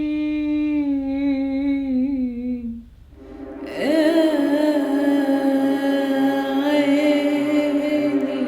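A woman's improvised vocal: one long held note that slides down in pitch and fades about three seconds in. About a second later a fuller passage starts, the voice wavering over a repeating low beat.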